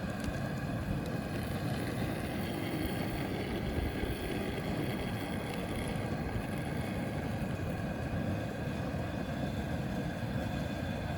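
Steady low rushing noise with a faint hum running through it, even in level, with no distinct splashes or knocks.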